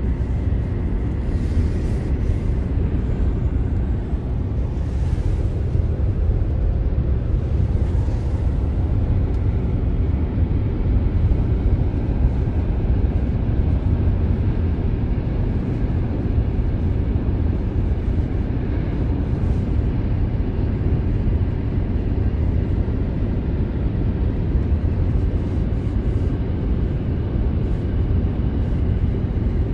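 Steady road noise inside a moving car's cabin: a low rumble of tyres and wind.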